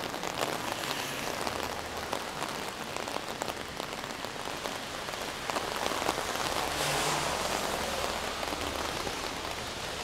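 Heavy rain pattering steadily on an umbrella overhead, the drops making a dense ticking hiss that grows louder for a moment about two-thirds through.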